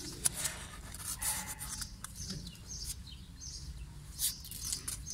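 Newborn kittens scrabbling and rustling against a cardboard box floor and wall as they crawl over each other, with sharp scratches now and then, two of them louder. Behind this a run of short high chirps repeats about every half second.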